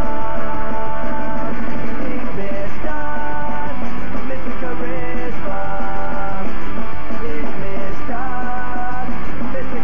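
Loud punk rock song: a band playing, with electric guitar.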